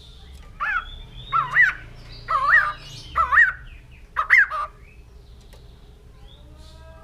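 White-crested laughingthrush calling: a run of about five loud phrases that warble up and down in pitch, ending just before five seconds in, followed by fainter calls.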